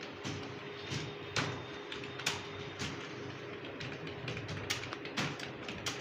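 Computer keyboard keys clacking at an uneven pace, a few keystrokes a second, as someone types.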